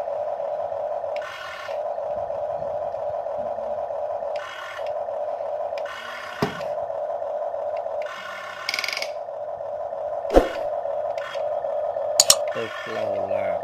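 Huina remote-control toy excavator whirring steadily as it works its boom and bucket, broken by a few short hissing stretches, with three sharp knocks about six, ten and twelve seconds in.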